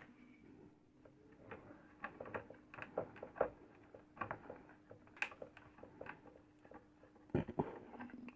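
Light clicks and taps of small parts being handled and fitted on an opened induction cooker, over a faint steady hum, with a louder knock near the end.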